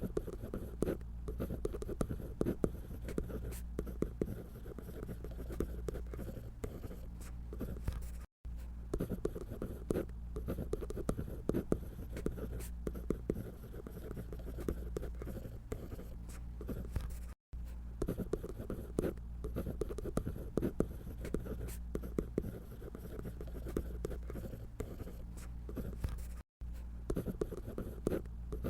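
A drawing tool scratching on paper in quick short strokes while drawing a paper doll, over a steady low hum. The sound drops out for a moment three times where the recording is cut.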